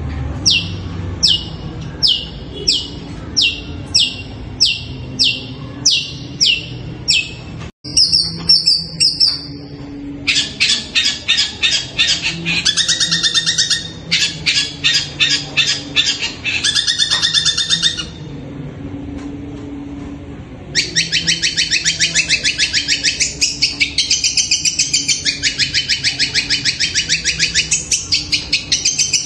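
Caged long-tailed shrike (cendet) singing: a run of high falling notes about two a second, a brief held note, then long stretches of fast chattering with a short lull in the middle.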